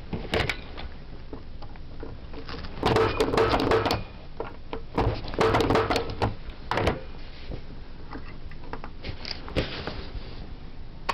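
Punch-down tool snapping Cat 5 wires down into a 110 connecting block, punching them down to seat and cut each wire. There are sharp clicks and snaps in clusters about 3 and 5 seconds in, with smaller plastic clicks from handling between them.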